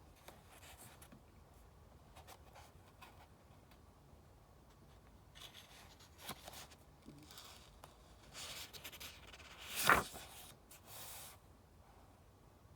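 Soft rustling of paper as a book is handled, with one louder swish of a page being turned about ten seconds in.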